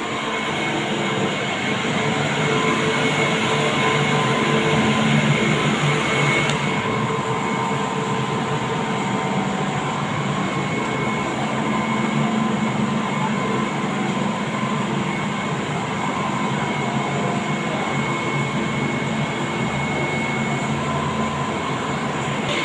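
Bukit Panjang LRT train, a rubber-tyred automated people mover, humming at the platform with a steady electric whine over general rumble. A high hiss above it drops away about six seconds in.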